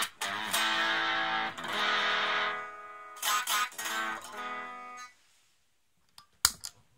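Electric guitar played through a Raizin "60s Vintage Tweed" effect pedal: chords struck several times and left to ring out, fading away about five seconds in. A few clicks follow near the end, one of them sharp and loud.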